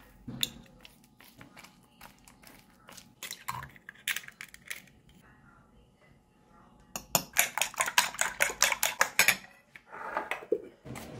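A fork beating eggs in a bowl, clinking against the side in a fast, even run of about eight strokes a second for a couple of seconds past the middle. Before that, scattered taps and scrapes of a fork on a plate.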